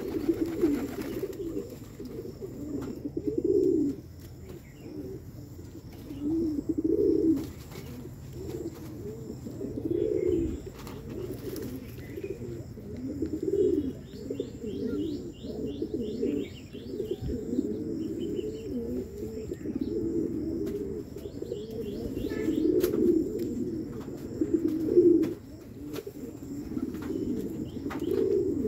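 A flock of fancy pigeons cooing, low coos overlapping and swelling every second or two, with scattered light clicks and a brief run of high chirps partway through.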